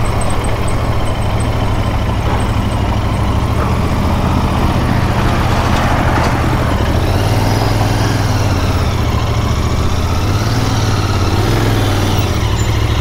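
Royal Enfield Continental GT650's parallel-twin engine running at low revs as the bike creeps along in slow traffic and pulls in to a stop, with a steady low drone.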